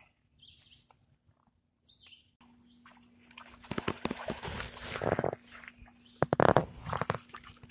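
Pigs rooting and eating close to the fence: irregular crunching and scuffling, loudest about six and a half seconds in.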